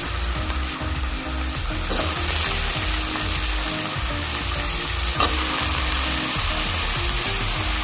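Cubed potatoes and drumstick pieces sizzling in hot oil in an aluminium pot, stirred with a metal ladle; a sharp clink of the ladle against the pot about five seconds in.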